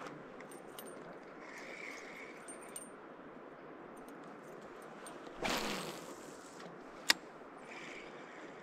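Steady rush of a mountain river, with small clicks and rattles of handled gear, a brief louder swish about five and a half seconds in and one sharp click about seven seconds in.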